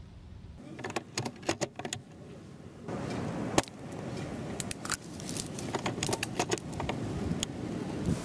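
A run of sharp metallic clicks from a bolt-action airsoft sniper rifle, several close together then a single loud snap, with wind buffeting the microphone from about three seconds in.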